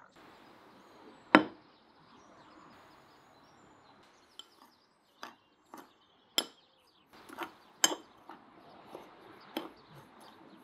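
Metal spoon clinking and tapping against a small clay bowl as dry spices are stirred together: a series of sharp clicks, with one louder knock about a second and a half in and a quick cluster near the end.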